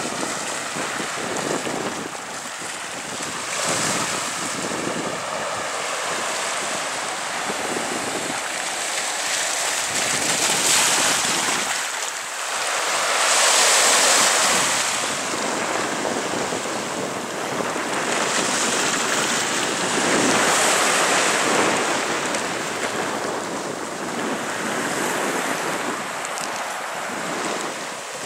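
Sea surf washing over a rocky shore, mixed with wind buffeting the microphone; a steady rushing that swells and eases in surges, loudest about halfway through.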